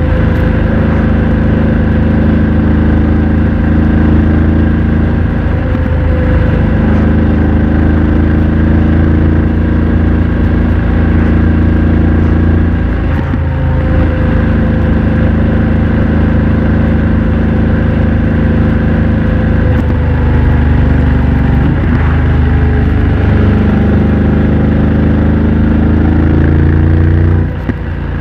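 BMW F900 XR's 895 cc parallel-twin engine running through a MIVV X-M1 aftermarket exhaust while under way at a fairly steady throttle. The note breaks briefly about every seven seconds, with the largest dip near the end.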